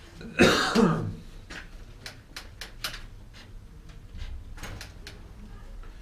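A man coughs and clears his throat once, loudly, about half a second in, followed by a series of light clicks and taps as he works on the bicycle.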